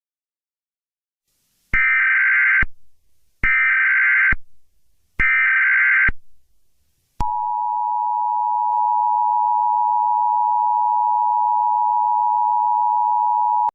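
Emergency Alert System header tones: three short buzzy data bursts, each just under a second long, then the steady two-tone EAS attention signal, which starts about seven seconds in and holds without a break.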